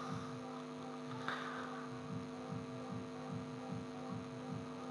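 Steady electrical hum with a low throbbing pulse about three times a second, and one faint click about a second in.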